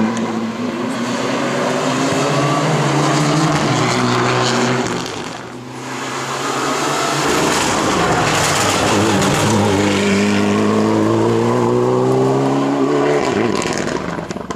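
Mitsubishi Lancer Evolution rally car's turbocharged four-cylinder engine at full throttle, its pitch climbing in steps through the gears. The sound drops briefly about five seconds in, then the engine climbs again before falling away near the end.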